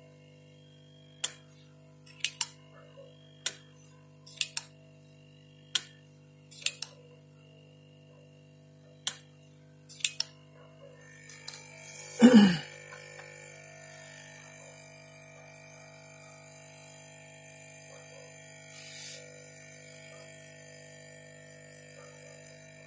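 Background music of steady sustained tones. About a dozen sharp, irregular clicks fall in the first ten seconds, and a loud falling swoosh comes about twelve seconds in, after which more held tones join.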